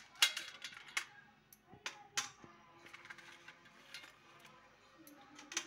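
Steel puja plates and the items on them being handled: several sharp, light clinks and knocks. The loudest comes just after the start, more follow about one and two seconds in, and one comes near the end.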